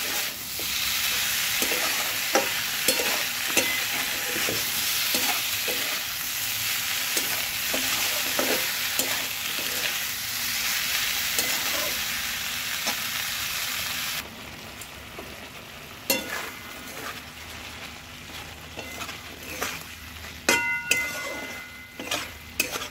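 Mixed vegetables in mustard paste sizzling in hot mustard oil in a kadai, with a metal spatula scraping and knocking against the pan as they are stirred and fried down with the spices. About fourteen seconds in the sizzle drops away suddenly, leaving mainly the spatula's scrapes and knocks.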